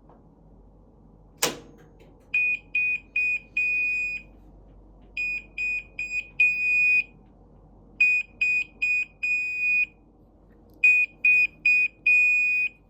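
Whirlpool Duet front-load washer's end-of-cycle signal: four rounds of three short, high-pitched beeps followed by one long beep. A single sharp click comes just before the first beeps.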